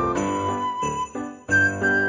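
Background Christmas music with sleigh bells jingling on each beat under a melody of held notes.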